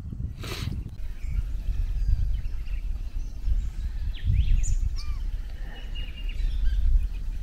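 Wind buffeting the microphone in gusts, with birds chirping and whistling. About half a second in, there is a brief clunk as the cast-iron camp oven's lid is set in place.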